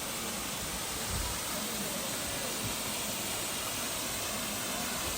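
Small waterfall rushing with a steady hiss of falling water.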